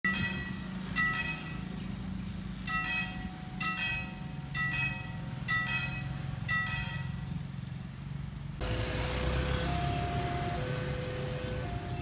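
Level-crossing warning bell, struck about once a second. About eight and a half seconds in it gives way suddenly to an alternating two-tone electronic alarm over a louder rushing noise.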